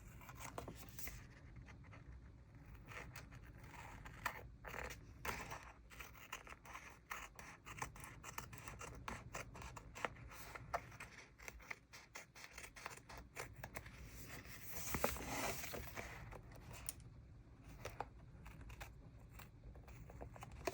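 Paper and tape being handled on a journal page: many short snips, clicks and scratches, with a longer scraping stretch about fifteen seconds in.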